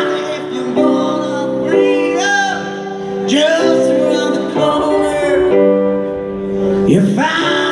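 Live band playing a song: sustained keyboard chords and electric guitar under drawn-out sung vocal lines.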